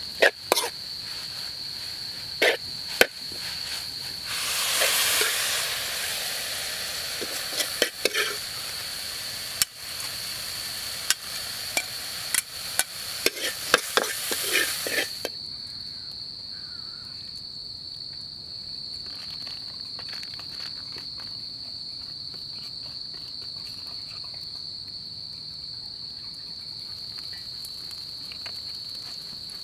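A metal spatula scrapes and knocks against a wok as stir-fried water lily stems and noodles are tossed and scooped out, with two stretches of hiss. About halfway through the stirring stops. Beneath it all is a steady high-pitched insect drone.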